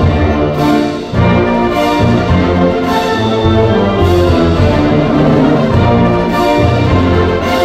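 Military wind band playing, brass-led: trumpets, trombones and tubas in held chords, with a bright percussion stroke about once a second.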